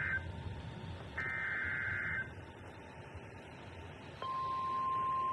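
NOAA Weather Radio alert on a Midland ER210 radio's speaker: a second-long burst of screechy SAME digital data, a pause of about two seconds, then the steady 1050 Hz warning alarm tone starting about four seconds in, signalling an incoming warning.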